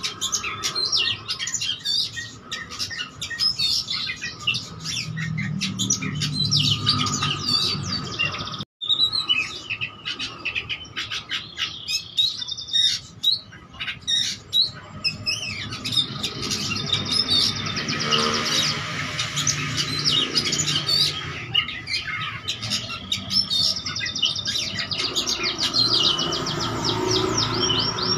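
Caged oriental magpie-robin singing continuously: a rapid, varied run of whistles, chatters and trills packed with imitations of other birds' calls. The song breaks off for an instant about nine seconds in.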